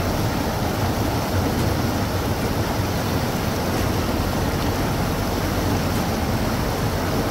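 Steady rush of a fast river tumbling in white-water cascades through a narrow rock gorge.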